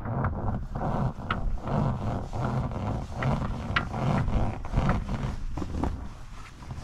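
Crab trap line hauled in hand over hand over the side of an inflatable dinghy: the rope scrapes and rubs against the rubber tube, with many irregular small clicks and knocks over a low rumble.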